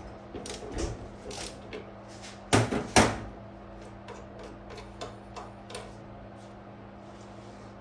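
Clicks and light knocks of a diesel injector and tools being handled on a workbench, with two sharp louder knocks about two and a half and three seconds in, over a steady low hum.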